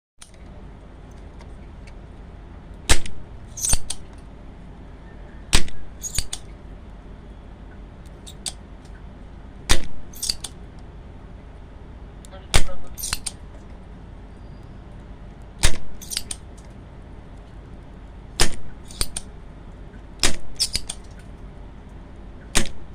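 Sharp cracking pops over a low steady hum, mostly in pairs about half a second apart and recurring every three seconds or so. This is the crackling fault of an 802-BT integrated amplifier heard through its speaker.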